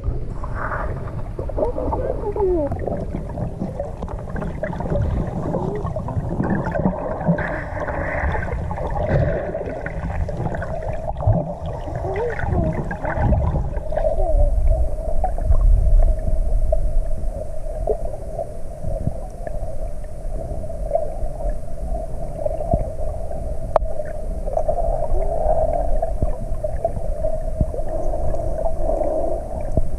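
Sea water heard through a submerged camera: a muffled low rumble with gurgles and short gliding squeaks in the first half, settling into a steadier hum from about halfway in.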